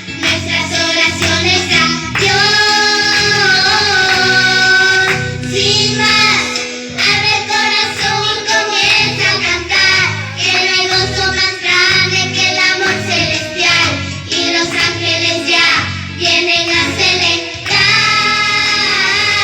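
A young girl singing a religious song over backing music.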